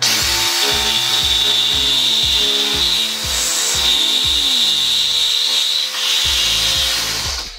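Corded reciprocating saw with a metal-cutting blade, running steadily as it cuts through a steel motor mount bolt whose nut no longer holds, so the bolt just spins. A steady high whine over rasping noise, easing off briefly twice.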